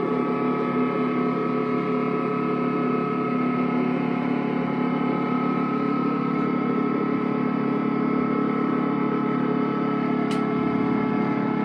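Experimental drone music from effects pedals and electronics: a steady, layered drone of many held tones that does not change. A single faint click about ten seconds in.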